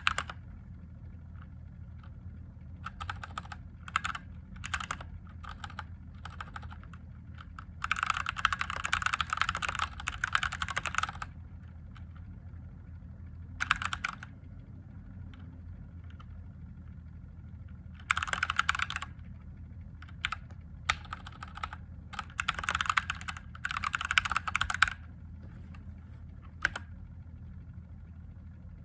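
Mechanical keyboard with Gateron Yellow linear switches being typed on in bursts of rapid keystrokes, with pauses between the bursts. A steady low hum runs underneath.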